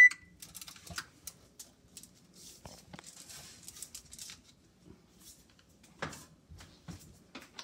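One short beep from a Maytag oven's touch control panel as start is pressed to begin preheating, then aluminum foil crinkling and rustling as a foil-lined cookie pan is handled. A couple of knocks come about six and seven seconds in.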